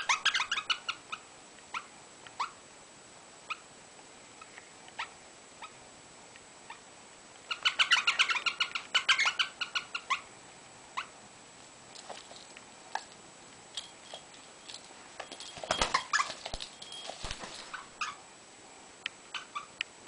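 Pet rosella chattering in bursts of rapid, high repeated notes: one just after the start, a longer, louder one about halfway in and another about three-quarters through. Scattered short ticks come between the bursts, and a few knocks sound during the last burst.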